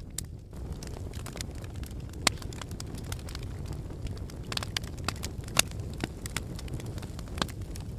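Wood fire burning in a fireplace: a steady low rumble of flames with sharp crackles and pops of the burning logs, several of them a second or two apart.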